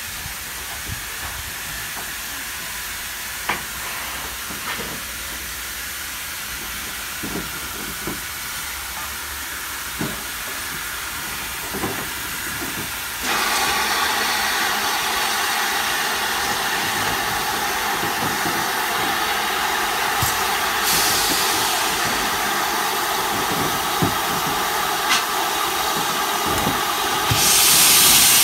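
GWR 5205-class 2-8-0 tank engine No. 5239 standing at a platform with steam hissing steadily. The hiss jumps much louder about halfway through, and a higher, louder hiss joins it near the end.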